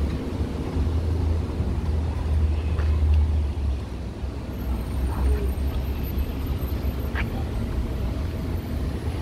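New York City subway train at the platform, a steady low rumble with a few faint clicks.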